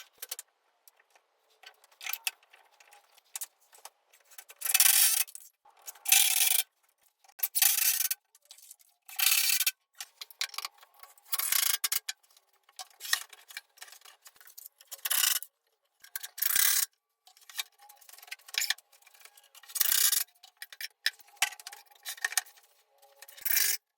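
Short rasping bursts of a tool working wood, each under a second long, repeating every second or two with quiet gaps between.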